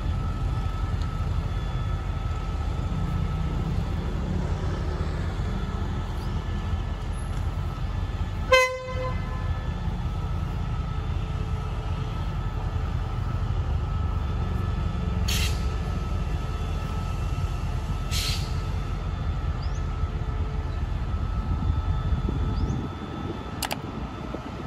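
Qishuyan CDA5B1 diesel-electric locomotive moving off with its train over a steady low rumble. About a third of the way in it gives one short horn toot, the loudest sound. Two short hisses come later.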